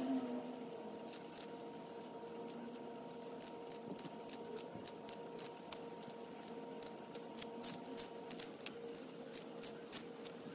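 Sulcata tortoise biting and tearing lettuce leaves, fast-forwarded to four times speed: a quick, irregular run of crisp clicks over a faint steady hum.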